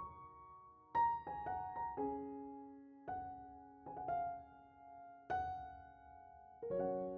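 Slow background piano music: single notes and chords struck about once a second, each left to ring and fade.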